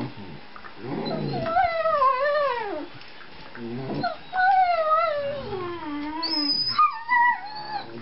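Treeing Walker Coonhound puppy howling while play-fighting: two long, wavering howls that each slide down in pitch, then a few short, higher yips near the end.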